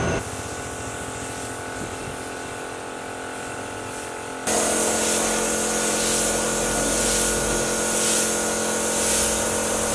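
Paint spray gun hissing as it sprays paint onto a motorcycle fuel tank, with a steady hum underneath. The hiss jumps much louder about four and a half seconds in.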